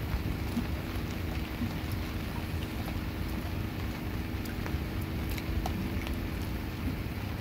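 Rain falling on the boat and the river, with scattered drop ticks over a steady hiss and a low hum underneath.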